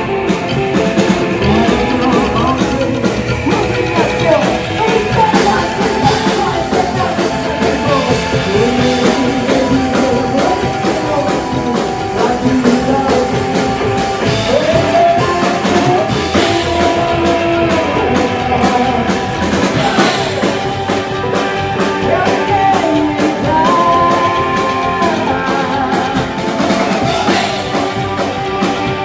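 Upbeat rock-and-roll / country-blues song with a singing voice over guitar and a drum kit.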